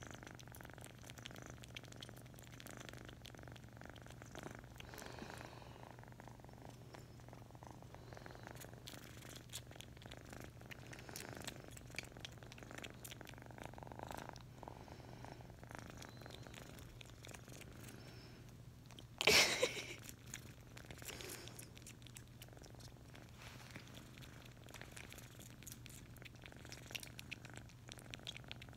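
A Himalayan cat purring steadily right at the microphone, with soft rustling and small clicks as it rubs against a face. A sudden loud rustle comes about two-thirds of the way through.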